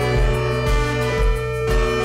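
Instrumental background music with held tones over a steady low beat, about two beats a second.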